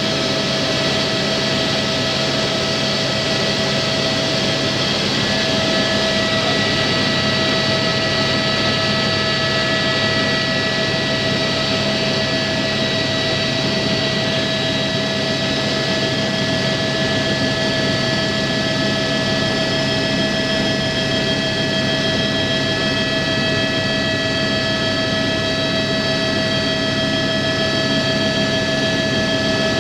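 Helicopter engine and rotors heard from inside the cabin in steady flight: a constant dense drone with a steady high whine on top.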